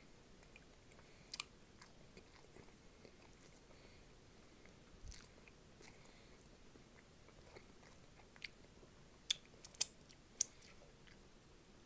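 A person chewing snack food close to the microphone, with scattered sharp mouth clicks and a quick cluster of crunchy clicks around nine to ten and a half seconds in.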